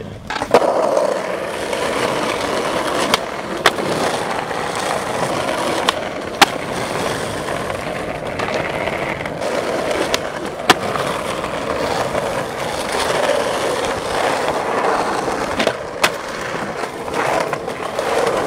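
Skateboard wheels rolling over pavement in a steady rumble, with a few sharp clacks along the way, some in quick pairs.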